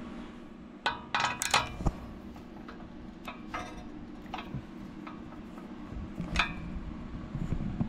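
Socket wrench on a long extension being worked on a 13 mm bolt: scattered short metallic clicks and clinks, a quick cluster about a second in and single ones after, with a steady low hum underneath.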